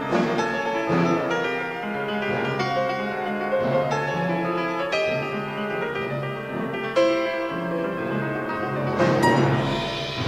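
Solo piano with symphony orchestra: the piano plays a busy stream of struck notes and chords over the strings. The music swells louder about nine seconds in.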